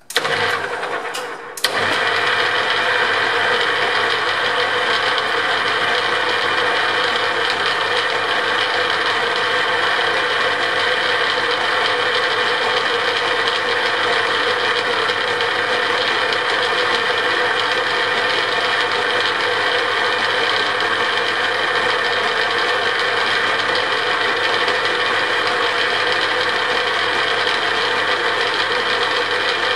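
Metal lathe switched on: it comes up to speed with a brief dip in the first two seconds, then runs steadily with a constant hum and whine as the four-jaw chuck spins.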